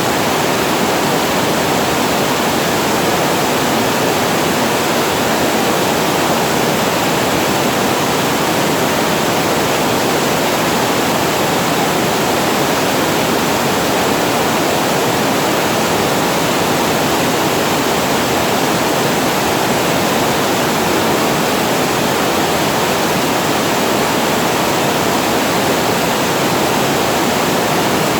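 Water falling over a reservoir weir: a steady, unbroken rush of falling water.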